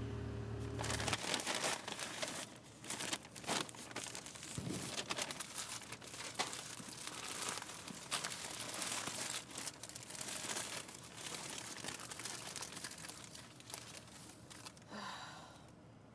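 Paper fast-food bag and burger wrappers crinkling and tearing as the food is unpacked and unwrapped, a dense run of rustles starting about a second in. A low hum sounds briefly at the start.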